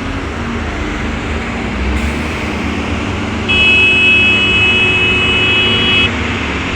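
Diesel engine of heavy earthmoving machinery running steadily. Past the middle, a steady high-pitched tone sounds over it for about two and a half seconds, then stops.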